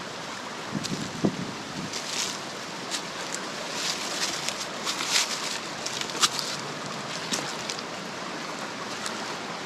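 Steady rushing of flowing creek water over rapids, with irregular light crackles and ticks on top.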